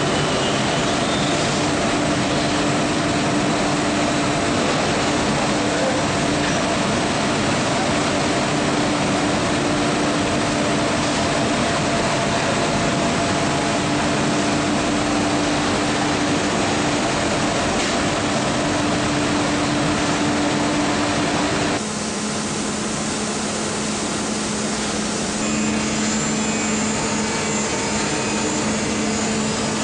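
Industrial laundry machinery running: a steady, loud mechanical noise with a constant hum. The sound changes abruptly about two-thirds of the way through, to a lower hum with less hiss, and shifts again a few seconds later.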